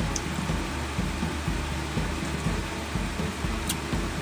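Steady low mechanical hum that pulses about three times a second, with two faint light clicks, one right at the start and one near the end.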